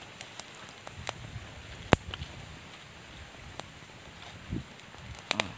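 Banana leaf being handled and tied with string around a rice parcel: scattered soft crinkles and a few sharp clicks, the sharpest about two seconds in.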